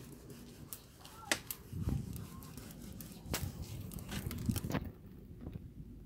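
Split firewood burning in a firebrick wood-fired oven, crackling with a few sharp, irregular pops over a low steady background.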